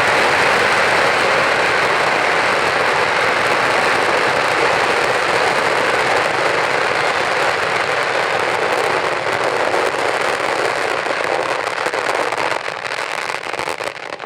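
A massive string of large firecrackers going off all at once in a dense, continuous crackle of countless bangs. It thins into scattered separate bangs near the end as the string burns out.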